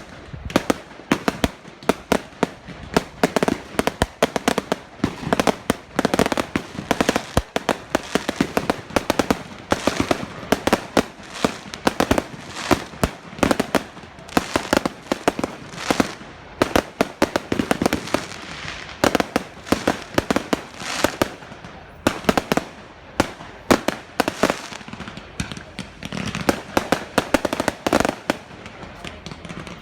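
Fireworks going off in rapid, irregular succession: a dense run of sharp bangs and crackling pops, several every second, with no let-up.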